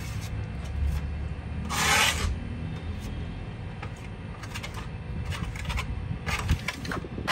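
Hand trowel scraping and rubbing over a plastered wall: a longer scrape about two seconds in, then several short scratchy strokes near the end.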